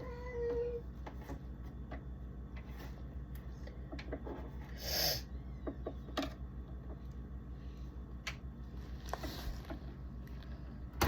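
A cat meows once, briefly, right at the start. After it come scattered small clicks and knocks over a steady low hum, with a short hiss about halfway through that is the loudest sound.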